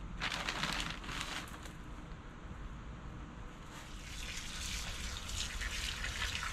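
Water from a garden hose wand spraying into freshly potted soil in terracotta pots, a steady hiss that starts about four seconds in. Before it, a few short rustling bursts as hands work the potting soil.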